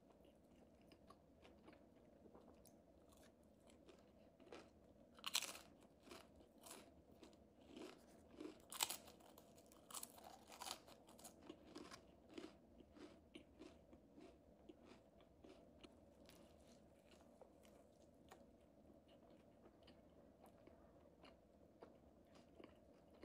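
Faint close-up chewing and crunching of a crispy fried chicken sandwich, with a few louder crunches about five and nine seconds in, then slower, quieter chewing.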